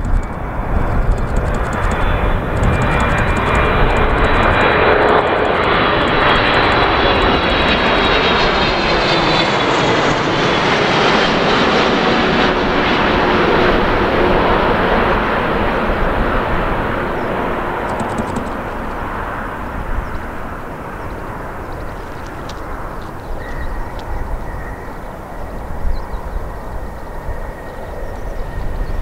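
Boeing 777-300ER's twin GE90 turbofan engines on low approach: the jet noise builds to a loud pass close by, with whining tones that fall in pitch as the airliner goes past, then fades away.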